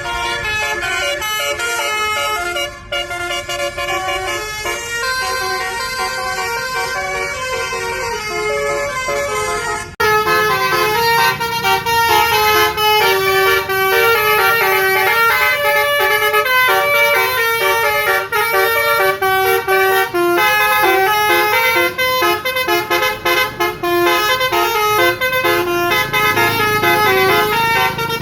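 Basuri telolet multi-tone bus horn playing a tune, its horn notes stepping quickly one after another. About ten seconds in it cuts abruptly to a louder, busier run of notes.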